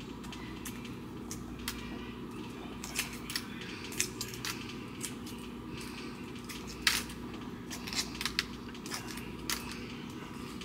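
A hard-boiled egg being peeled by hand: irregular small cracks and clicks as the shell breaks and pieces come away, with one sharper crack about seven seconds in. A steady low hum lies underneath.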